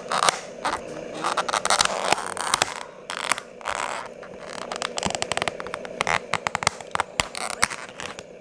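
Thin clear plastic lid of a takeout food container being pried off its black plastic tray by hand, crackling and clicking as it flexes and comes free, with scraping in between.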